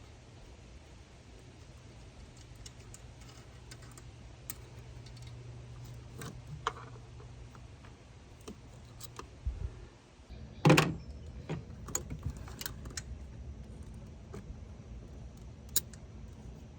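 Scattered metallic clinks and taps of hand tools on engine bolts and brackets, with one loud clank about eleven seconds in, over a steady low hum.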